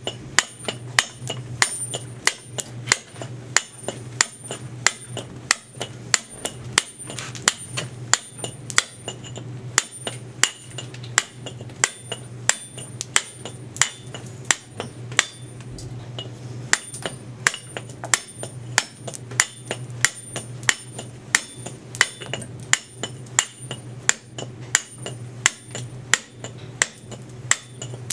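Stonemason's square-headed club hammer striking a steel punch into a stone block, sharp metallic blows at a steady pace of about two a second, knocking off waste stone while working a chamfer. The blows pause briefly twice, about ten and sixteen seconds in.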